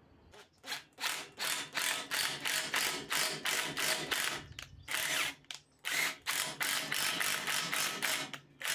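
Cordless 18V driver with a socket bit driving a hex screw into a cast iron bearing block: a fast, even run of clicks, about five a second, pausing briefly twice midway.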